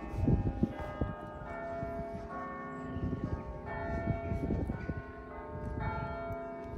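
Church tower bells ringing out a carol, struck one note after another, each note left to ring on into the next, with bursts of low rumble underneath.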